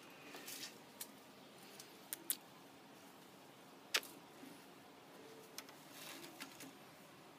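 Phone handling noise: faint rubbing with a few sharp clicks, the loudest about four seconds in.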